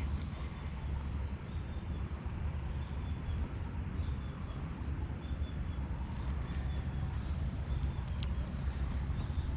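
Crickets trilling steadily over a low, steady rumble, with one sharp click about eight seconds in.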